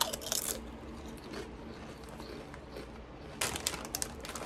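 A crisp potato chip bitten with a crunch at the start, then quiet chewing. Near the end comes a quick run of crackles as the foil chip bag is crinkled in the hand.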